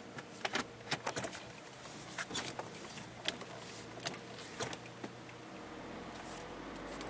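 Inside the cabin of a 2003 Nissan Altima 2.5 SE, the 2.5-litre four-cylinder engine runs low and steady under a scatter of irregular sharp clicks and knocks. Near the end the engine and road noise rise as the car pulls away.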